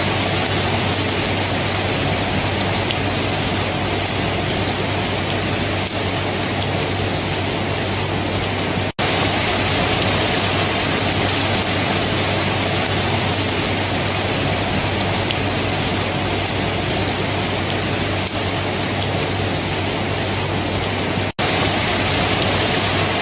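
Steady heavy rain falling, a dense even hiss with a low hum underneath. The sound cuts out for an instant twice, about nine seconds in and near the end, as at loop splices in the recording.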